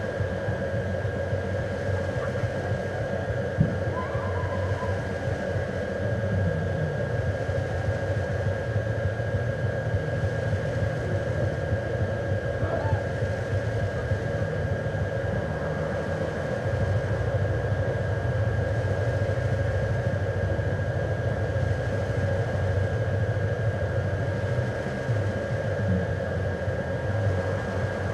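A steady, machine-like droning hum with a constant thin high whine over it, and a single sharp click about three and a half seconds in.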